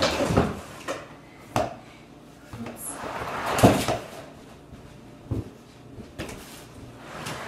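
A plastic storage tote piled with hiking gear being pushed and shifted across a carpeted floor: a string of knocks and thumps with rustling of bags and clothing, the loudest about three and a half seconds in, echoing in a large, bare room.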